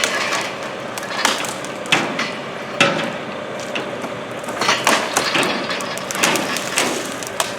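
A series of about nine sharp, irregularly spaced knocks over a steady machine hum.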